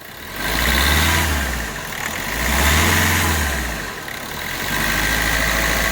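Hyundai Verna Fluidic's engine revved twice, each rev rising and falling back, then settling to a steady idle. It runs without the cylinder-3 misfire knock, which the mechanic says a repair to the ECM's injector circuit has cured.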